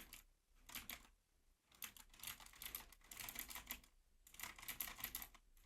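Typing on a Xinmeng K901 typewriter-style mechanical keyboard: runs of quick key clicks broken by short pauses.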